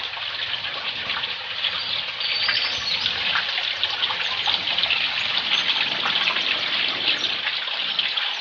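Flowing stream water rushing steadily, with a dense patter of small splashes.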